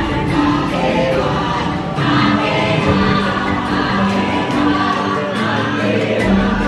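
Music with a choir of voices singing long, held notes over a steady instrumental bed.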